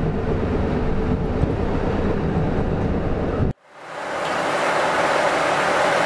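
KiHa 85 series diesel express train running, heard from inside as a steady low rumble. About three and a half seconds in the sound cuts off abruptly, and a brighter, hissing train noise with little bass fades up, heard from the platform beside the train.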